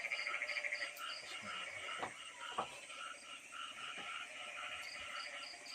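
A chorus of frogs calling, short calls repeating several times a second at a few fixed pitches, with a rapid trill about the first second. A few faint clicks sound in the middle.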